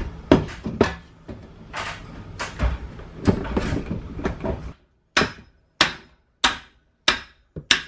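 Clattering and knocking as a white bed-support channel is handled and set against the camper wall, then a hammer striking it steadily, about six blows roughly two-thirds of a second apart over the last three seconds.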